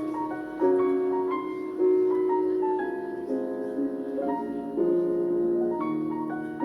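Piano music: a slow melody over held chords, with new notes struck every second or so.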